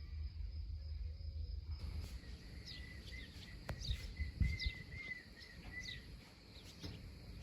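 Small birds chirping in short, quick falling calls, starting about two seconds in, over a steady high insect trill and a low rumble of outdoor background noise.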